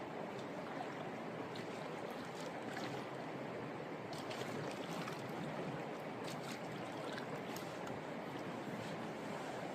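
Creek water flowing, a steady rush with scattered small splashes.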